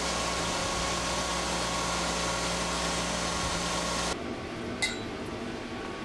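CNC milling machine cutting a timascus plate under flood coolant: the spindle and coolant spray give a steady hiss with a steady whine underneath. It stops abruptly about four seconds in, and a single light clink follows.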